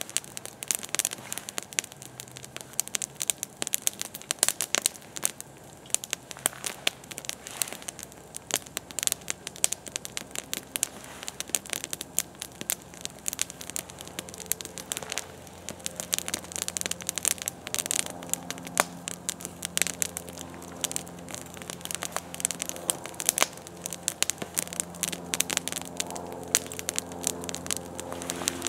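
Open wood campfire crackling, with frequent sharp irregular pops. A faint low steady hum comes in about halfway through.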